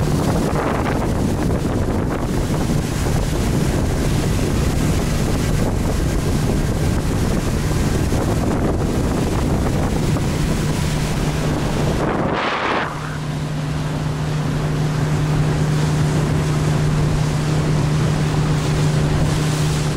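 Motorboat engine running at speed, a steady hum under heavy wind noise on the microphone and the rush of the wake. About twelve seconds in there is a short break with a rising rush, after which the engine hum is stronger and steadier.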